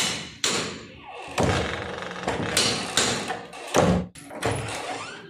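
Door being shut against its iron frame, with a series of knocks and thuds; the loudest thud comes just under four seconds in.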